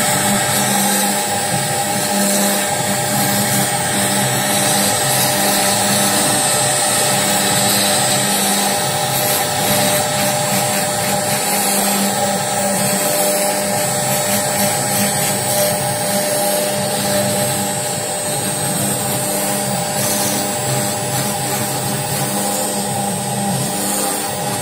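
Wood CNC router at work: the spindle's steady high whine over the noise of the bit cutting wood.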